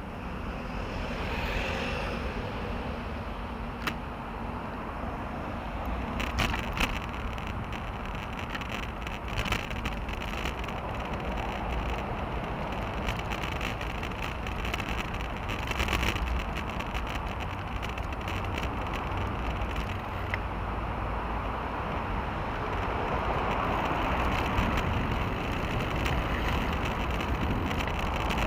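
Ride noise picked up by an action camera mounted on a moving road bicycle: a steady low rumble of wind and tyres on pavement, with scattered brief clicks and rattles.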